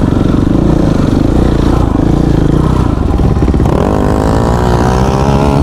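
Dirt bike engine running hard under throttle. About two-thirds of the way in, the pitch climbs steadily as it revs up.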